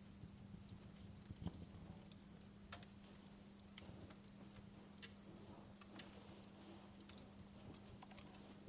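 Fire crackling softly: irregular sharp pops and snaps over a faint hiss, with a steady low hum underneath.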